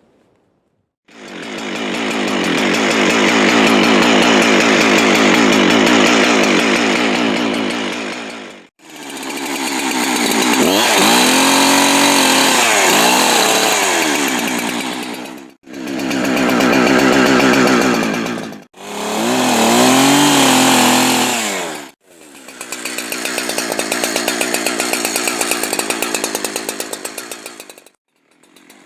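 Farmertec Holzfforma clone two-stroke chainsaw running at high revs and cutting wood, its pitch sagging and recovering as the chain loads in the cut. It comes in several separate stretches, each cut off suddenly.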